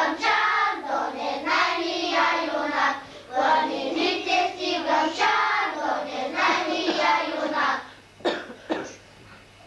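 Young children singing a song, with a short break about three seconds in. The singing stops about eight seconds in, followed by two short clicks.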